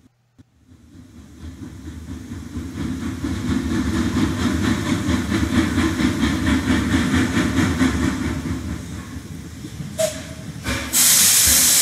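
Recorded train sound effect played through the computer from a web page's audio player: a train running with a fast, even rhythm that fades in, then a brief tone and a loud burst of hiss near the end.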